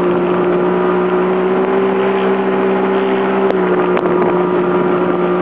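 Jet ski engine running at a steady speed, a drone that holds one pitch, over a constant hiss of wind and water.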